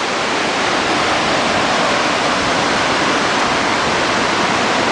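Steady, loud rush of cascading waterfalls pouring over limestone.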